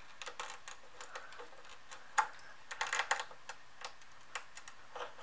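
Small screwdriver tips clicking and scraping against a DIP chip and its socket as the Amiga 2000's Denise chip is pried up from the motherboard. Irregular light clicks, with the loudest a little past two seconds and a quick cluster around three seconds in.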